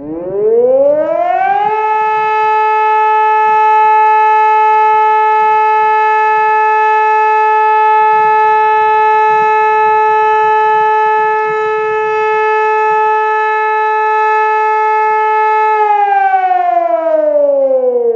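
SiRcom SIBT 500 civil defence siren sounding for a test. Its tone rises over about two seconds to a steady pitch, holds for about fourteen seconds, then begins to wind down near the end.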